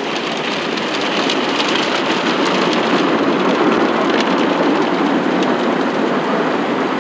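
Water spraying and spattering onto a car's windshield and body in an automatic tunnel car wash, heard from inside the cabin: a steady, dense hiss and patter like heavy rain, growing a little louder midway.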